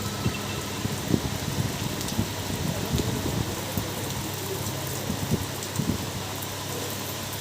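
Heavy rain falling steadily, with a few short low knocks.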